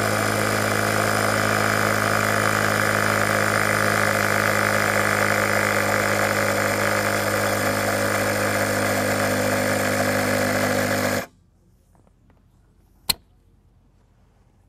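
Sea Eagle two-stage electric turbo pump running steadily as it inflates an inflatable kayak chamber, then cutting off abruptly about eleven seconds in, the sign that it has reached its set pressure of 3.2 psi. A single sharp click follows a couple of seconds later.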